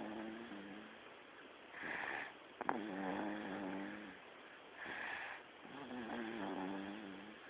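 A sleeping baby snoring in a steady rhythm, about one breath every three seconds. Each breath is a short breathy rush followed by a longer, pitched snore, with a single small click about two and a half seconds in.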